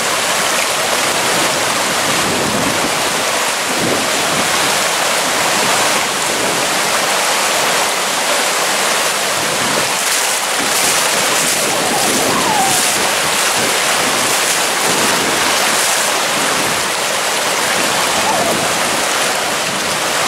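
Floodwater from a burst water main rushing across flooded ground, a loud, steady, even rush of water.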